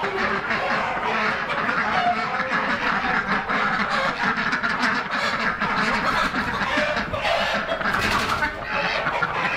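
A large flock of chickens clucking and squawking together in a barn coop, a dense, continuous din of many overlapping calls, with a short noisy burst about eight seconds in.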